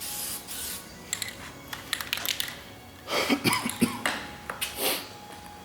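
A short hiss of aerosol guide coat being sprayed onto a primered hood, followed by scattered clicks and a cluster of clattering knocks, loudest about three to five seconds in, as tools and sanding blocks are handled.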